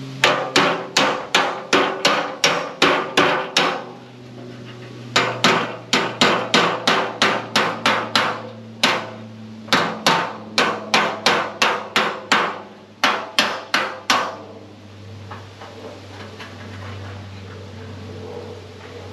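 Body hammer striking a dented Camaro front fender against a dolly held behind it, knocking out a crease. The blows come in four quick runs of about three a second with short pauses, then stop about three-quarters of the way through.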